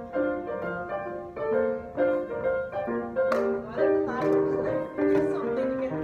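Instrumental music: a melody of short, evenly paced notes with a simple accompaniment.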